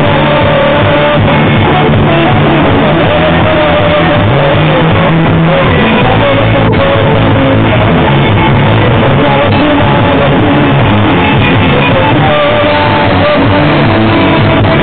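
Live rock band playing: guitar over a drum kit, loud and continuous. The recording is poor and dull, with no top end.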